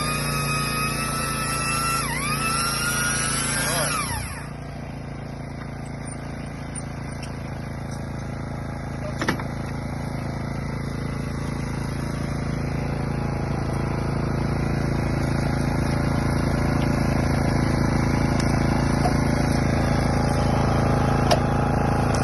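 Electric motor of a butt-fusion pipe welding machine's facing tool whining at speed, dipping in pitch briefly, then winding down and stopping. A steady low machine hum follows and slowly grows louder, broken by two sharp clicks.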